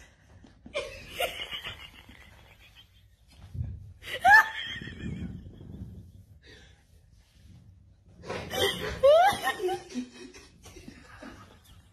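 A woman laughing in three bursts, the loudest a little over four seconds in.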